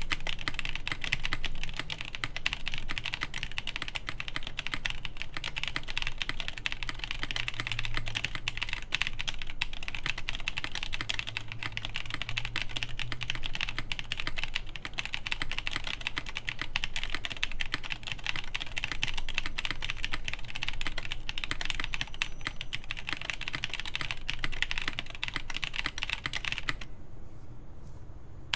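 Fast, continuous typing on a mechanical keyboard: stock Durock Ultramarine V2 switches with 65 g springs under GMK Dolch keycaps, the main cluster mounted on the PCB with no plate. Near the end the typing turns quieter and duller.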